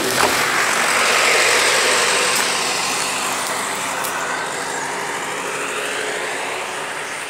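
A road vehicle passing close by: tyre and engine noise swells to a peak about a second in, then slowly fades as it goes away.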